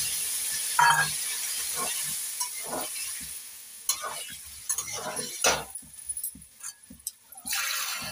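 Spiced water poured into a hot steel kadhai of fried elephant foot yam in masala sizzles, the hiss fading over the first few seconds. A steel spatula then stirs and scrapes against the pan in short strokes, with another short hiss near the end.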